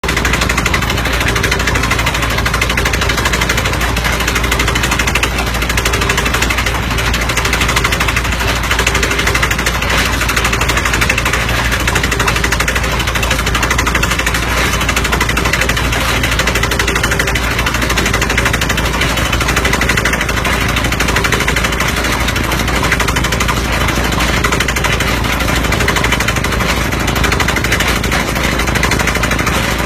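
Industrial well-drilling rig's air-driven percussion hammer drilling hard rock: loud, steady, rapid pounding over the drone of the engine that powers it.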